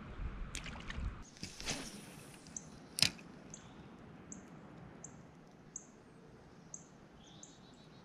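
A small bird giving short, high chirps, about one a second, over the steady wash of a flowing creek. A few knocks and a brief rush of noise come in the first two seconds, and a single sharp click about three seconds in is the loudest sound.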